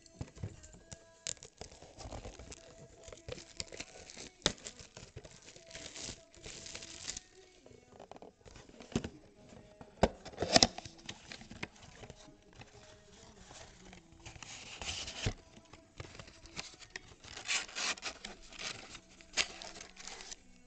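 Cardboard Topps Chrome trading-card box being torn open by hand and its packs pulled out. Scattered tearing, crinkling and light clicks, loudest about ten seconds in.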